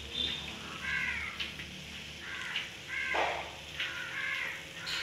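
Short animal calls repeat roughly once a second, over the faint sizzle of oil still bubbling around breaded bread patties in a frying pan.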